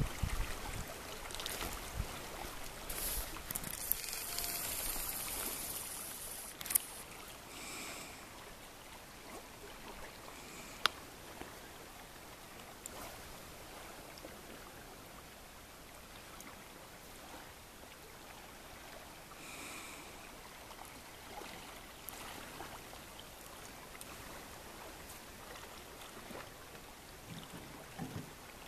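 Faint steady rush of river water flowing past, a little louder in the first few seconds, with a few brief sharp knocks, the sharpest about eleven seconds in.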